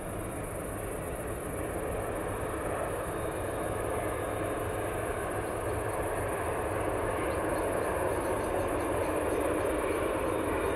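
Airbus A310-304F freighter's General Electric CF6-80C2 turbofans running at taxi power: a steady jet hiss and rumble that slowly grows louder.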